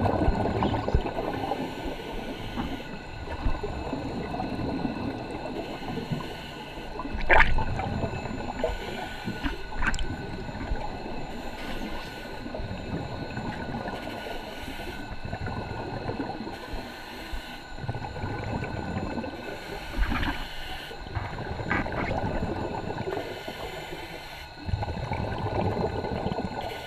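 Scuba diver breathing underwater through an OTS full-face mask, heard from under the water: exhaled air gurgles and bubbles out of the mask's exhaust in surges every few seconds, with the loudest surge about seven seconds in. A few short clicks sound between the breaths.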